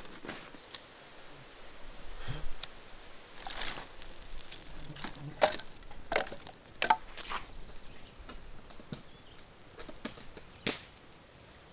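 Small campfire of dry sticks and split branches crackling, with sparse, irregular sharp pops and snaps from the burning wood.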